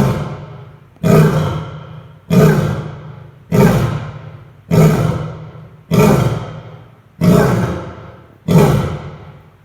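A zoo lion gives a steady series of short, hoarse grunts, about eight of them, one every second or so. Each starts sharply and fades away. The uploader calls it coughing or clearing its throat; it is the grunting series that ends a lion's roar.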